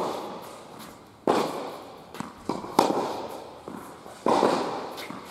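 Tennis ball struck with rackets in a rally, a sharp pop about every second and a half, each ringing out in the echoing indoor hall, with lighter ball bounces between.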